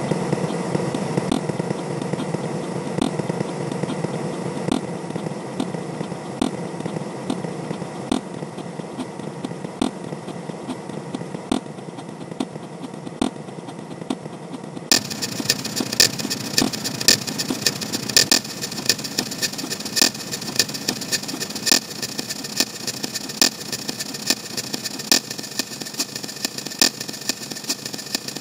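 CapCut explosion sound effect repeated and stacked so many times that it runs together into a continuous rough, engine-like noise with regular sharp clicks. About halfway through it turns suddenly brighter and harsher, with more clicks.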